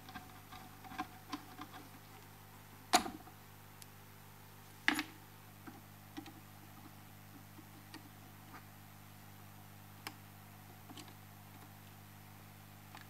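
Small clicks and taps of a screwdriver and knife blade working on the metal fittings of a vintage Sony TC-357A reel-to-reel recorder's casing as it is taken apart, with two sharper knocks about three and five seconds in. A faint steady hum runs underneath.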